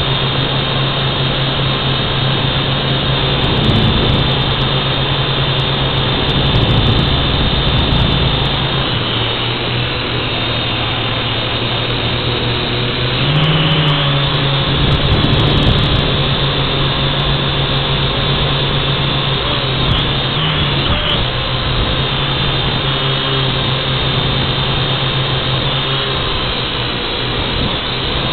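Model airplane's motor and propeller running steadily, heard close up from a camera mounted on the plane. The drone's pitch steps a few times along the way.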